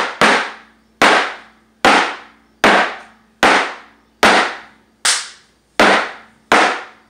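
Flamenco shoes stamping on a plywood floor in flamenco footwork, nine sharp, ringing strikes at an even pace of about one every 0.8 seconds.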